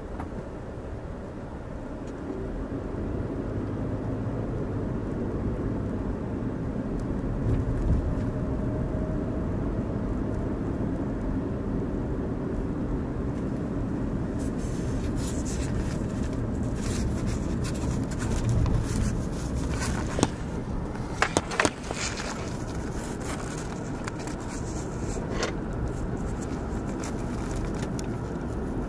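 A car driving at low speed, heard from inside the cabin through a dash cam: a steady low rumble of engine and tyres. In the second half come irregular sharp clicks and knocks, with a few louder ones close together past the middle.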